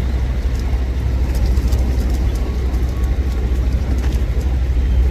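Steady low rumble of outdoor background noise with faint scattered clicks; no clear pigeon calls stand out.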